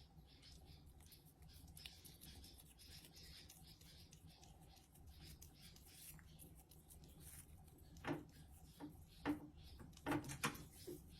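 Toothbrush scrubbing on a cat's teeth: faint scratchy rubbing and small clicks, with a few louder knocks later on.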